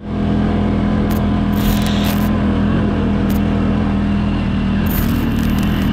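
ATV engine running at a steady, even pitch while riding along a dirt track, with a few short crackles now and then.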